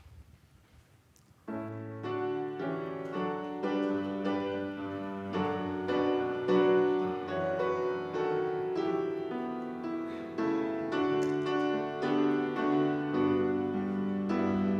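Piano (or electric keyboard) beginning a hymn introduction about a second and a half in, playing slow sustained chords.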